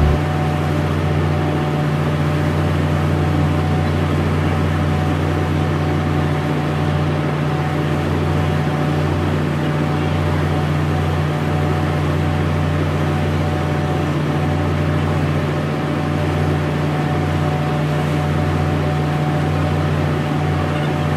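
A river excursion boat's engine running steadily under way, a deep constant drone, with water washing along the hull.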